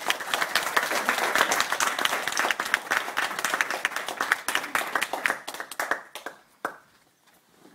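Small audience clapping by hand, dense and steady, then thinning out and fading about six seconds in, with one last lone clap just after.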